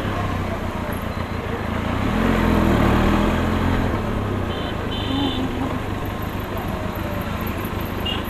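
Benelli TRK 502's 500cc parallel-twin engine running as the bike is ridden at low speed. The revs rise and fall briefly about two to three seconds in, over a steady noisy rush.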